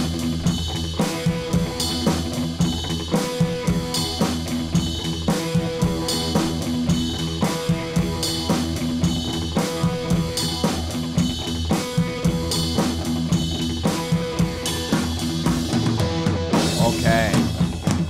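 Background music with a drum kit keeping a steady beat.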